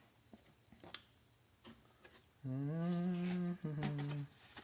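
A man humming with his mouth closed, two wordless 'hmm' sounds in a row, the first about a second long and the second shorter, after a few faint clicks.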